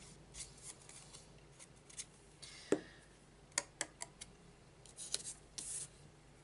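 Paper and cardstock being handled on a cutting mat: soft rustles with scattered sharp clicks and taps, and a brief louder rustle near the end as a glued paper triangle is slid and pressed into place.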